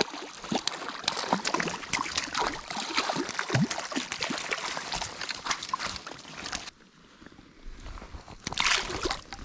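Water splashing and sloshing close by, a dense irregular run of splashes that dies away about seven seconds in, with one more short burst of splashing near the end.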